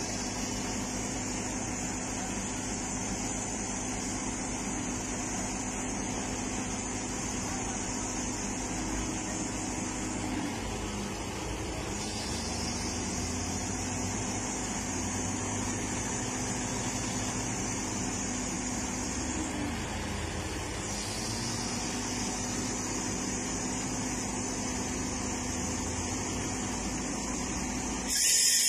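Diesel engine of a hydraulic excavator running under load while lifting a large marble block, its pitch sagging and recovering twice as it strains, over a high hiss that comes and goes. A short, louder burst of noise comes right at the end.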